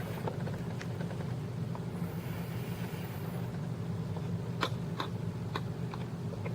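A few light, sharp clicks and taps of small hard objects being handled, over a steady low hum.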